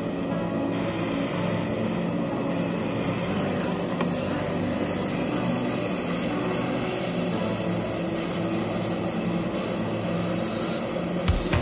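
Steady machine running noise, a low hum under a constant hiss, with a couple of knocks near the end.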